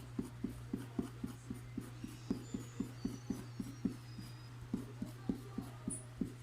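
Quick, even scraping strokes on a T-shirt, about four or five a second, working off slime that has been hardened with ice.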